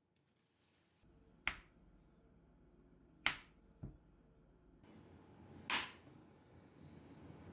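Four short, sharp clicks or knocks, a second or two apart, the second and third close together, over faint room hiss: kitchenware being set down or tapped while baking.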